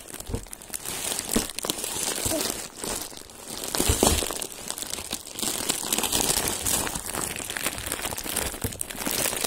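Plastic wrapping and brown packing tape on a parcel crinkling as it is handled and pulled at to get it open, with many small crackles. It is loudest about four seconds in.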